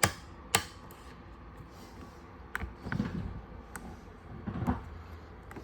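A series of short sharp clicks and taps, about one a second, with a couple of duller knocks: fingers pressing the buttons of an RV's control panel whose screen is not lighting up.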